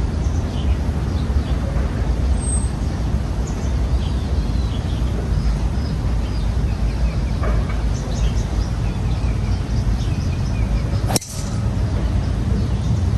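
A single sharp crack of a driver striking a golf ball off the tee, about eleven seconds in, over a steady low rumble with faint high chirps.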